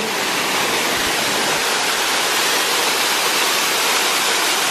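Small waterfall pouring into a shallow rock pool close by: a steady, even rush of falling water.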